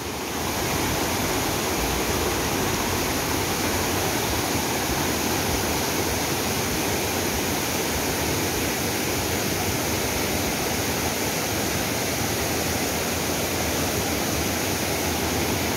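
A muddy river in flood after heavy rains, rushing fast: a steady, unbroken noise of fast-moving water.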